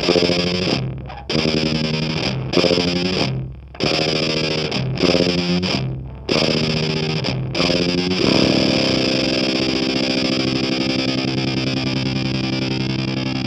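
Distorted electric guitar, a Stratocaster-style guitar played through effect pedals: a run of chords, each broken off short, then one chord held and left ringing from about eight seconds in.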